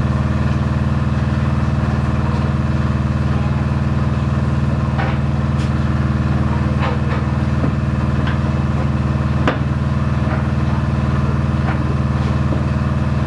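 Steady, loud machinery hum with several constant low tones in a lifeboat's engine room; it does not come from the main diesel engines, which are shut down. A few faint knocks sound over it, one sharper than the rest.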